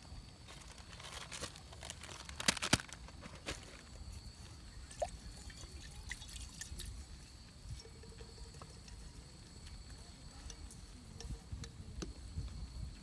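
Water dripping and trickling, with scattered sharp clicks and taps, the loudest a quick cluster about two and a half seconds in, over a faint steady high tone.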